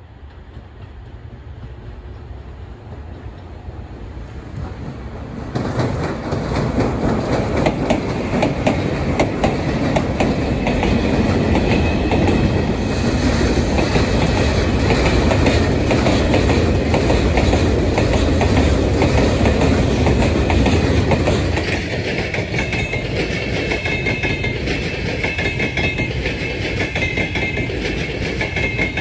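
Freight train of boxcars and flat wagons rolling past close by, the wheels clattering over the rail joints with a heavy rumble. About two-thirds of the way in this gives way to a double-deck passenger train rolling in with a steady high whine.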